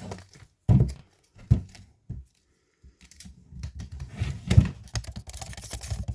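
Packaging handled during an unboxing: a few sharp knocks in the first two seconds, then quick rustling and clicking that builds up and grows louder from about halfway through.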